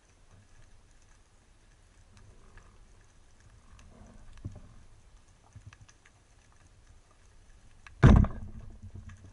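Speargun firing underwater: one sharp, loud shot about eight seconds in, with a short ringing tail. Before it, only faint scattered underwater clicks and crackles.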